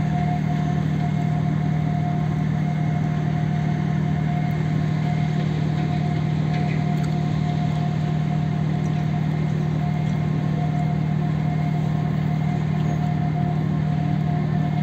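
Ship's engine machinery running steadily: a constant low hum with a steady higher whine above it.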